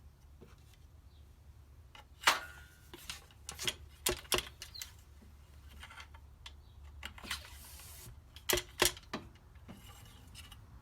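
Scattered sharp clicks and knocks, with a brief rustle just before the last two, from loading a 12-gauge black-powder muzzleloading shotgun as the over-powder card and cushion wad go in.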